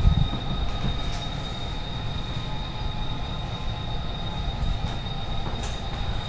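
Model trains running on the layout: a steady low rumble of wheels on track with a constant high-pitched whine and a few faint ticks.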